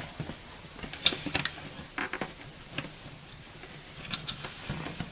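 Irregular light clicks and taps of a screwdriver and hands working at the screwed-on cover of a dishwasher's underside compartment, a few at a time with short gaps between.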